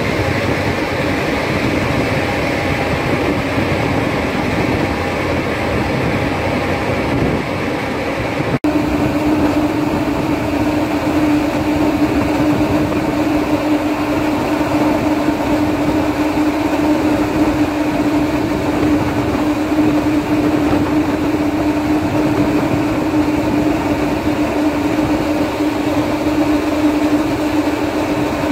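Steady engine drone heard aboard a river ferry. About eight and a half seconds in, the sound drops out for an instant at a cut, and after that a steady humming tone stands out over the drone.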